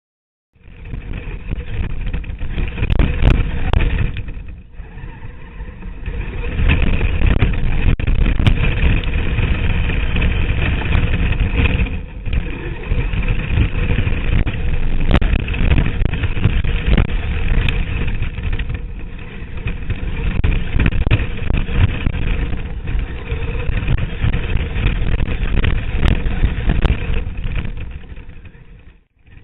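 Traxxas E-Maxx electric RC monster truck driving hard: a steady motor and gear whine over a dense rushing, rattling noise with frequent knocks. It eases off briefly a few times and drops away near the end.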